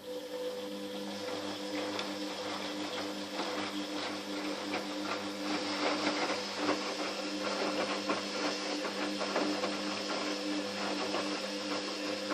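Fagor washing machine's drum motor running during the wash cycle: a steady motor hum with a rattle of the towel load turning in the drum. It starts suddenly and stops near the end.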